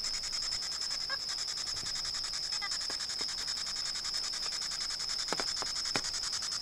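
Crickets trilling steadily in the dark, one high, even, finely pulsing chirr. A few faint short blips sound about five to six seconds in.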